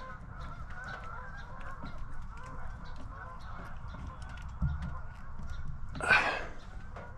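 Geese honking in the background, with one louder harsh honk about six seconds in and a soft thump a little before it.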